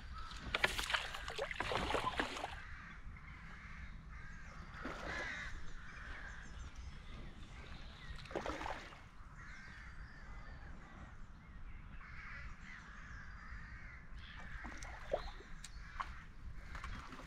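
Crows cawing now and then, with smaller birds chirping faintly throughout. A burst of clicking, rustling handling noise comes in the first two seconds.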